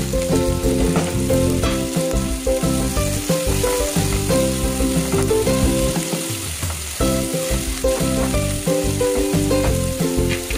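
Chopped capsicum and onion sizzling as they fry on high heat in a non-stick pot, stirred now and then with a silicone spatula, over background music.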